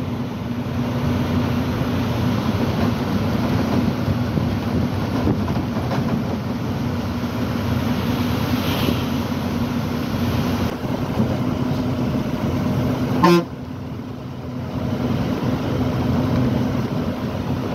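Truck engine droning steadily at road speed, heard from inside the cab. There is one short, loud horn toot about three-quarters of the way through.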